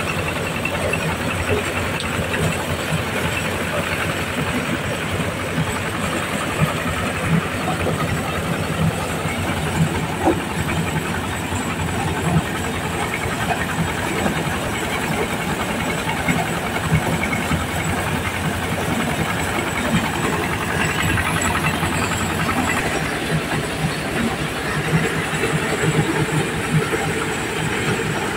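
Single-cylinder diesel engine running steadily under load, driving a corn sheller, with a constant rattle of whole corn cobs being threshed in the shelling drum.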